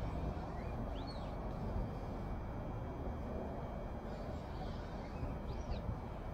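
Steady low background hum of a large workshop, with two brief chirps, each rising and falling in pitch, about a second in and again about five and a half seconds in.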